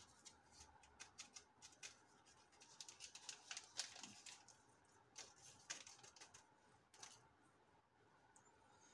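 Small handheld metal mesh sieve being shaken and tapped over a bowl, sifting flour with baking powder: faint, irregular ticking and rattling in quick clusters of taps, thinning out near the end.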